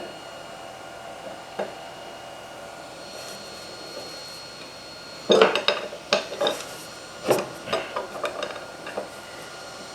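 Small metal parts clinking and tapping as the trolley's hardware is handled and fitted: one click about one and a half seconds in, then a run of sharp, briefly ringing clinks from about five seconds on.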